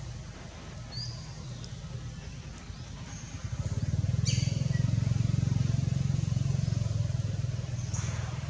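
A low motor rumble, typical of a passing vehicle, that swells suddenly about three and a half seconds in and stays loud, easing slightly near the end. Short high bird chirps come about a second in, at about four seconds, and near the end.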